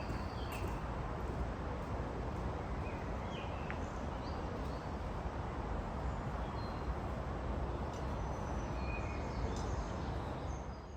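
Outdoor woodland ambience: a steady rushing noise with small birds chirping now and then.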